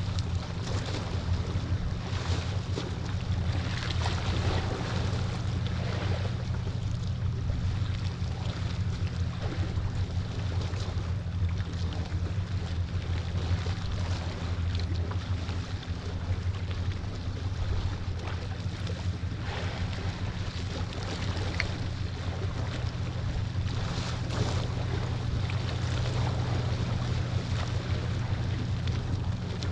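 Wind buffeting the microphone over waves at the shore, gusting unevenly, with a steady low hum underneath.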